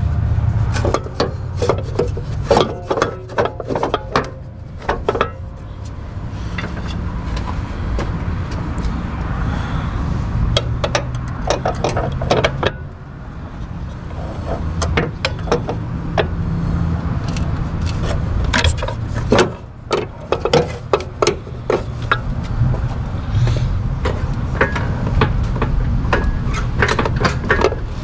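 Hand tools clicking and clanking against metal in irregular clusters while parts are worked loose in a car's engine bay, over a steady low rumble.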